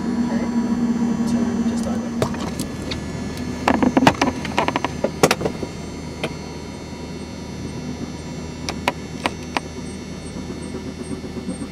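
Helicopter running with a steady drone. About three and a half seconds in comes a quick cluster of sharp clicks and knocks, followed by a few single clicks later on.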